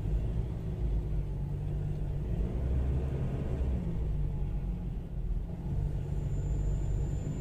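Inside the cab of a 2018 Ford Ranger with the 2.2 L four-cylinder turbodiesel, driving at low road speed: a steady low rumble of engine and road noise. The engine is running normally again, its cracked turbo inlet hose replaced.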